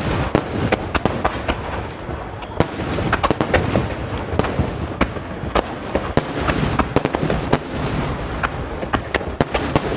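Rapid barrage of large aerial firework shells bursting, several sharp bangs a second over a continuous rumble of overlapping booms and echoes: the finale salvo of shakudama (10-inch) shells.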